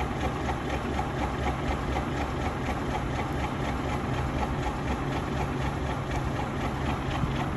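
A heavy engine idling steadily with an even, rapid beat.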